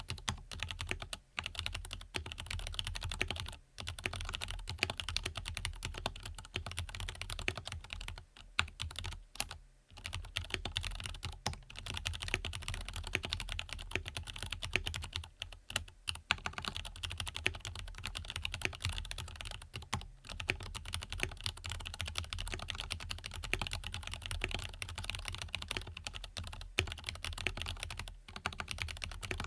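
Continuous fast typing on a custom mechanical keyboard with lubed Zealios tactile switches and lubed Everglide V2 stabilizers, with a few brief pauses.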